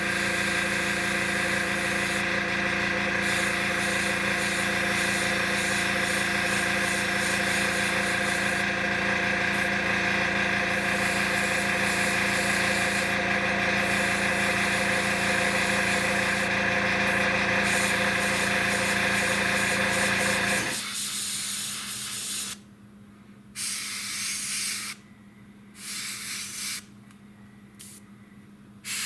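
Airbrush spraying primer with a steady hiss over the hum of its compressor. About 20 seconds in, the compressor's hum cuts off, and the airbrush gives short spells of hiss, each a second or two long, with pauses between.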